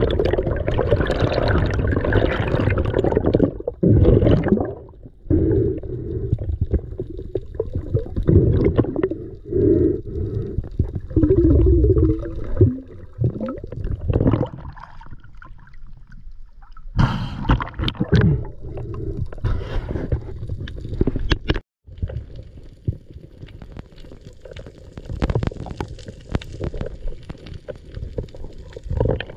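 Underwater camera audio: muffled water rushing and gurgling around the housing as a freediver moves through the water. The sound changes abruptly a few times where clips are cut together.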